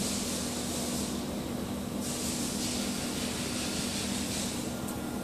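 PVC banner welding machine running as a blue PVC strip feeds through its rollers: a steady machine hum with a high hiss that swells for about the first second and again from about two seconds in until near the end.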